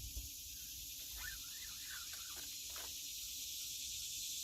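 Steady high-pitched buzz of an insect chorus, with a few faint chirping calls about a second in.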